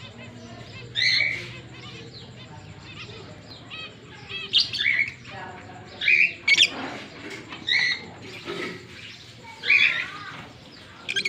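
Pair of Fischer's lovebirds calling: short, sharp, high-pitched chirps, one every second or two, with a few quick double chirps in the middle.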